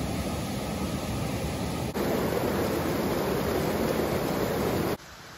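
Steady rushing noise of water heating toward the boil in a stainless steel kettle over an alcohol stove. It gets louder about two seconds in and drops abruptly to a faint hiss near the end.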